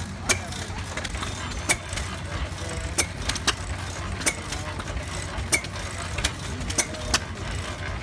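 Antique single-cylinder stationary gas engines with heavy flywheels running, sharp exhaust pops at uneven intervals, about one or two a second, over a steady low rumble.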